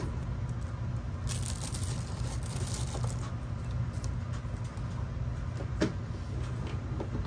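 Light rustling and handling of small plastic items and packaging over a steady low background hum, with one sharp click about six seconds in.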